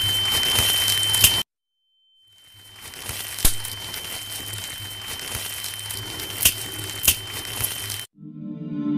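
Crackling, static-like noise with a steady high whine and a low hum under it; it cuts off abruptly about a second and a half in, fades back in quieter a second later with a few sharp clicks, and stops just after eight seconds as music begins.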